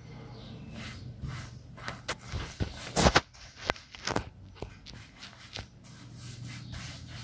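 Paintbrush working white glue onto a wooden frame and cotton canvas, with scattered small clicks and knocks of handling; the loudest is a sharp knock about three seconds in.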